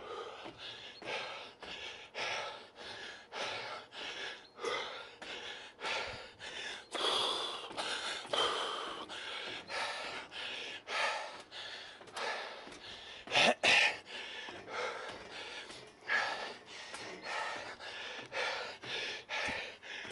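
A man panting hard from climbing a very long, steep staircase, about two heavy breaths a second. About two-thirds of the way through there is a short loud burst.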